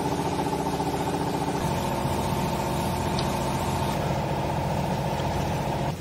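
Hydraulic baler's power unit running: a steady mechanical hum that shifts to a lower, heavier tone about a second and a half in and cuts off abruptly at the end.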